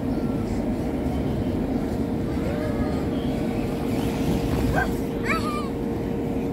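Steady hum and rushing noise of an electric air blower keeping an inflatable slide inflated. A few brief high-pitched children's squeals come in the second half.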